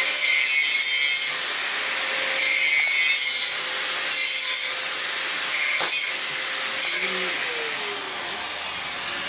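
An iron pipe being cut: a harsh, rasping hiss that surges and eases about every second and a half.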